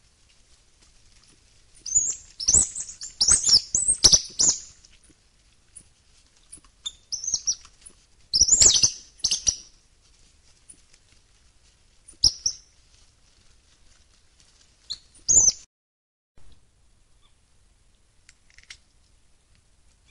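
South American coatis giving sharp, high-pitched chirps and squeals while feeding at close range, a flurry of calls a couple of seconds in, then scattered clusters, the last about three quarters of the way through.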